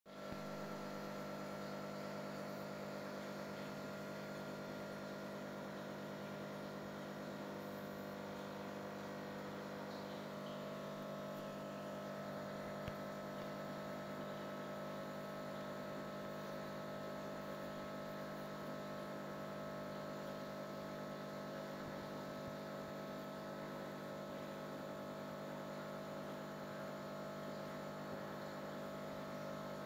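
Steady electrical hum of aquarium equipment, made of several fixed tones at an even level. There is one small click about thirteen seconds in.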